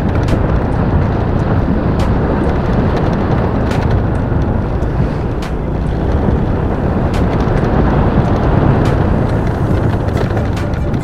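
Motorcycle running along the road while being ridden: a steady, dense rumble of engine and road noise, with a few sharp clicks scattered through.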